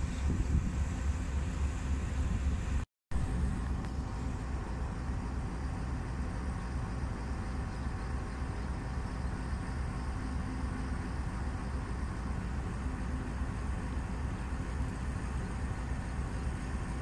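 Outdoor wind buffeting the microphone: a steady, fluttering low rumble. The sound cuts out completely for a moment about three seconds in.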